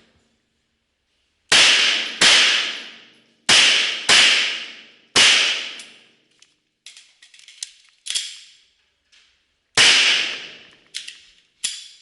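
Pistol shots fired in a course of fire: two quick pairs, a single shot, then another about four and a half seconds later, each ringing out with a long echo. Fainter sharp cracks fall in between and near the end.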